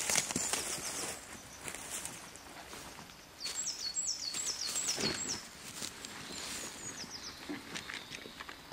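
Footsteps and rustling in dry leaf litter and twigs, busiest in the first second. Partway through, a bird sings a run of about six quick, high, downward-sliding notes, with a few more shortly after.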